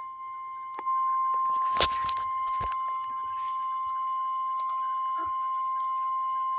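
NOAA Weather Radio 1050 Hz warning alarm tone: a single steady high beep held on, announcing a tornado warning broadcast. A few clicks and a short crackling rattle come about two seconds in.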